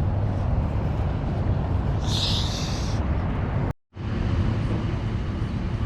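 Steady low vehicle rumble, with a short hiss about two seconds in; the sound drops out abruptly for a moment near the four-second mark.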